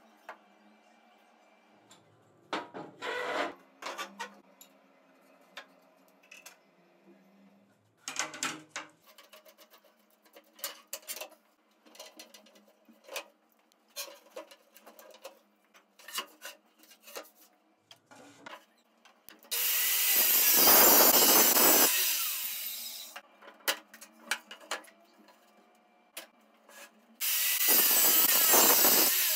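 Handheld circular saw cutting across a wooden tabletop, two cuts of a few seconds each in the second half, the first winding down as it ends. Before that, scattered knocks and scrapes of wooden boards and clamps being handled.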